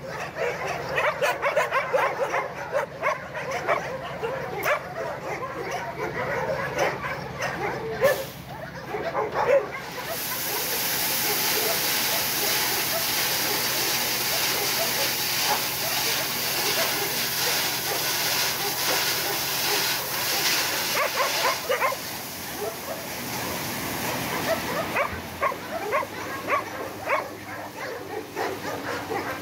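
Dogs barking and yelping over the steady running of a dump truck's engine. About ten seconds in, a load of coarse crushed gravel starts pouring off the tipped truck bed with a loud, steady rushing hiss that lasts about fifteen seconds. The barking picks up again near the end.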